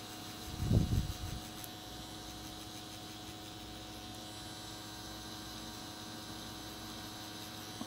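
Tattoo machine running with a steady hum while shading. A brief low thump about a second in.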